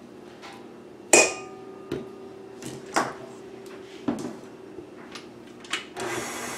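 Knocks and clinks of a measuring cup and spatula against a stainless steel mixing bowl as shortening is scraped in, the loudest about a second in with a brief metallic ring. A clunk about four seconds in as the tilt-head stand mixer's head is lowered, then near the end the mixer's motor starts with a steady whir.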